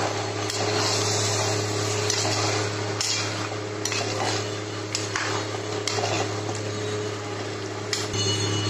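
A spoon stirring and scraping marinated chicken pieces through thick masala paste in a heavy pot, with a few sharp clinks of the spoon against the pot. A steady low hum runs underneath.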